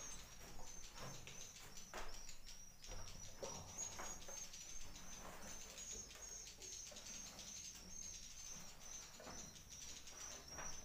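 Swiftlets twittering in a fast, continuous, high-pitched run, with scattered sharp clicks.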